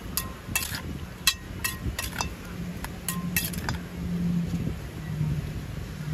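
Metal spoon clinking and scraping against a stainless steel mixing bowl as a spicy salad is tossed and scooped out. There are about a dozen short, ringing clinks at uneven intervals, over a low background hum.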